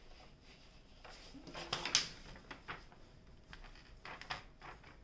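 Paper rustling and crinkling as a large sheet is lifted and smoothed over a diamond painting canvas, with soft scrapes and taps of hands working it flat; loudest about two seconds in.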